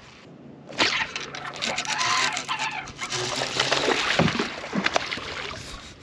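A hooked bass splashing and thrashing at the water's surface as it is reeled to the boat, starting about a second in and dying down near the end.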